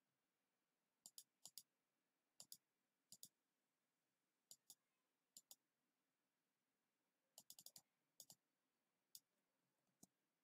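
Faint computer mouse clicks over near silence, mostly in quick pairs spaced a second or so apart, with a fast run of several clicks about seven and a half seconds in.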